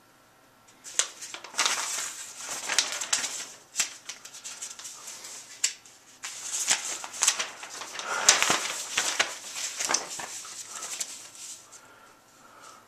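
Sheets of paper notes rustling and crinkling in irregular bursts as they are leafed through.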